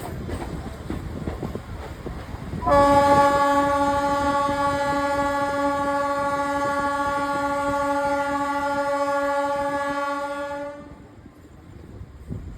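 Indian Railways EMU train running with a rumbling clatter, then its horn sounds one long steady blast of about eight seconds, starting about three seconds in and cutting off sharply near the end.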